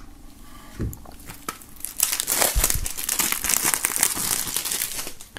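Plastic shrink-wrap film being slit and pulled off a CD jewel case: a few light scrapes and clicks, then loud crinkling and tearing of the film from about two seconds in.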